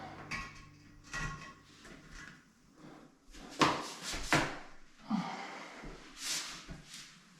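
A series of knocks, clunks and scrapes from hands working with sink fittings and mounting hardware, with two sharp knocks about three and a half and four and a half seconds in.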